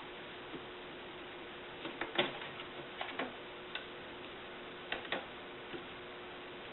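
Light, irregular clicks and ticks of a small screwdriver working the tiny screws on the side of a laptop's display bracket, some in quick pairs, over a faint steady hum.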